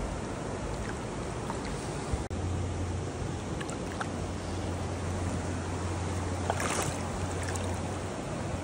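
Creek water rushing steadily over rocks close by, with a sharp knock about two seconds in and a brief splash of water about two-thirds of the way through.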